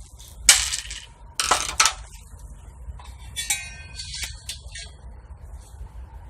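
Galvanized steel raised-bed panels and hardware being handled during assembly: a few sharp metallic clanks and clinks, the loudest about half a second and a second and a half in, with a strike near the middle that rings briefly.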